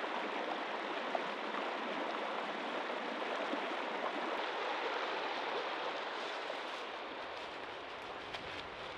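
Shallow rocky creek rushing and splashing over stones: a steady rush of water, a little fainter near the end.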